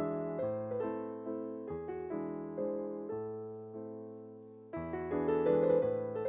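Gentle background piano music: chords are struck and left to ring out. The sound dies away to a lull, and a fresh, louder chord comes in about three-quarters of the way through.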